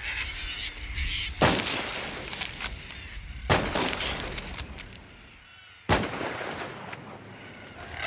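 Three high-powered rifle shots about two seconds apart, each with a long echoing tail, fired to scare cockatoos off the crops.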